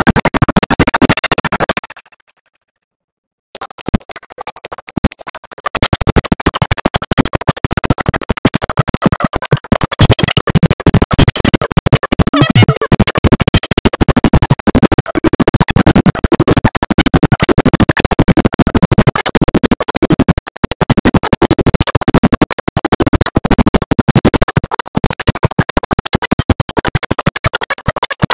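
Background electronic music with a dense beat, cut off by about a second and a half of silence two seconds in, then starting again.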